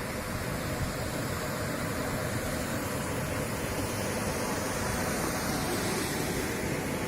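Steady rushing water, a constant even hiss and rumble without breaks.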